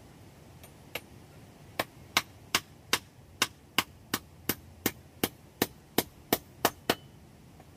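Hammer blows on a wooden stump block: a couple of light taps, then about fifteen sharp, steady strikes, roughly three a second, that stop about a second before the end.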